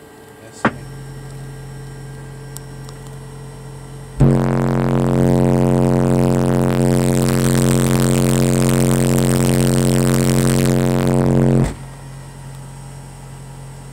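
A 45 Hz test tone played through two Soundstream XXX 15-inch subwoofers driven by Soundstream XXX 6500 amplifiers at a 1 ohm load. After a click and a quieter hum, it jumps to a loud, steady drone with overtones about four seconds in and cuts off suddenly near the end.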